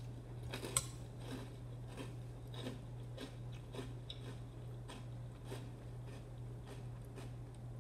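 A person chewing a mouthful of Reese's Puffs cereal in almond milk, with soft irregular crunches, and one sharper click about a second in, over a steady low hum.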